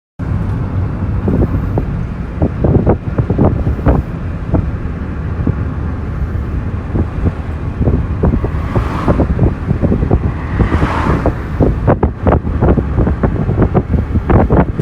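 Wind buffeting the camera microphone outdoors: a constant low rumble with irregular gusty thumps, and two brief rushing swells near the middle.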